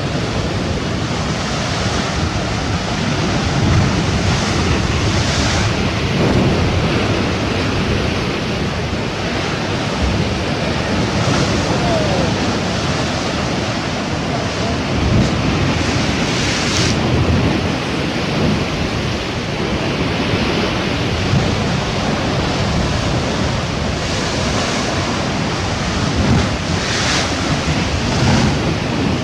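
Sea surf washing in steadily, with waves breaking and surging every few seconds, and wind buffeting the microphone.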